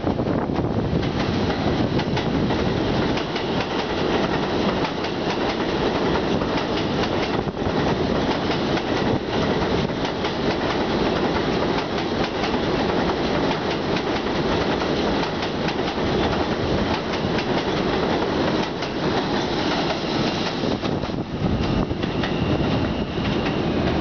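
R160 subway train running past on elevated steel track: a steady rumble with a rapid clickety-clack of wheels over the rail joints. Faint high whining tones come in near the end.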